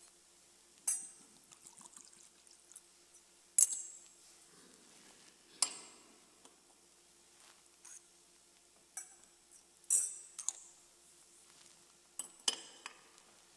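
Small glass cruets clinking against a metal chalice and the altar as wine and a drop of water are poured into the chalice, with a short pouring sound near the middle. There are about eight sharp clinks, spaced a second or two apart.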